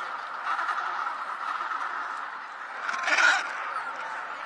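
Penguins calling: a steady din of calls, with one short, louder squawk about three seconds in.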